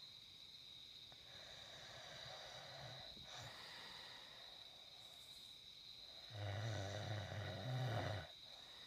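A man snoring in his sleep: a faint breath in the first few seconds, then one loud, low snore lasting about two seconds, starting a little past six seconds in. A thin, steady high-pitched tone runs underneath throughout.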